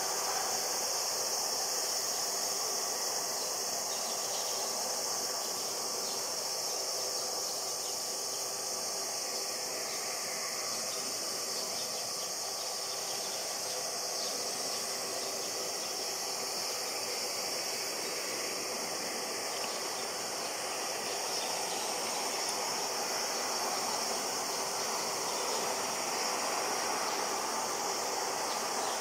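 Steady high-pitched droning of summer insects over a distant jet airliner's engine noise, which swells slightly in the last few seconds.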